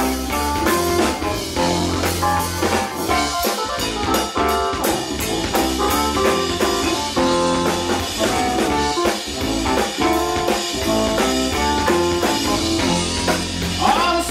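Live blues band playing an instrumental break on drum kit, bass guitar and electric guitar, with no singing.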